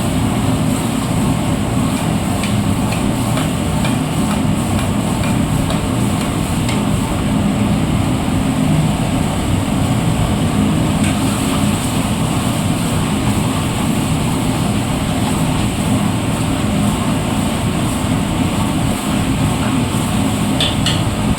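Chicken being stir-fried (bhuna) in a pan over a high gas flame: a steady burner rush and sizzle, with a metal ladle clinking against the pan now and then.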